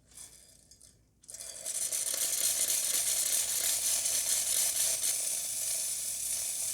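Espresso machine steam wand opened to purge, starting about a second in with a steady hiss as steam and condensed hot water spit out of the wand, clearing the water before the milk is steamed.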